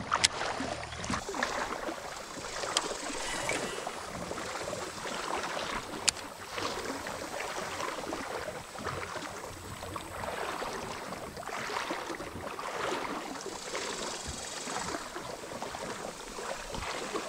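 River water splashing and sloshing around a kayak in uneven swishes, with one sharp click about six seconds in.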